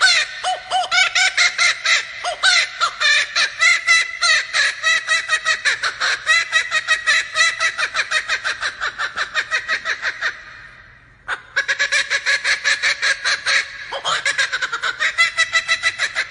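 Male laughing kookaburra giving its laughing call: long bouts of rapid, repeated chuckling notes, breaking off briefly about ten seconds in and again near fourteen seconds.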